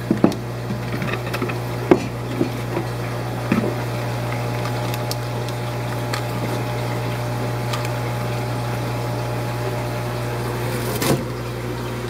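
Steady low hum of fish-room equipment (pumps and air), with scattered clicks, knocks and rustles of handling, most of them in the first few seconds, and another cluster near the end.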